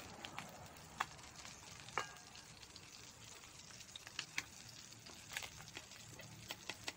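Tamban fish sizzling faintly in hot oil in a metal wok. Metal tongs click and clink against the pan a dozen or so times as the fried fish are lifted out; one clink about two seconds in rings briefly.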